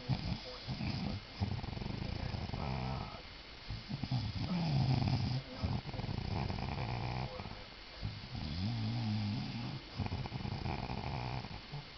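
A sleeping person snoring really loud, one rattling snore every couple of seconds, several with a low buzzing drone.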